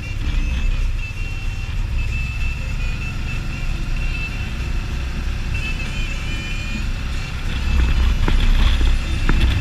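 Can-Am Spyder three-wheeled motorcycle under way, its engine a steady low rumble mixed with wind and road noise. A thin high wavering tone runs over the first seven seconds, and a few sharp knocks come near the end as the ride gets louder over a rough, patched road surface.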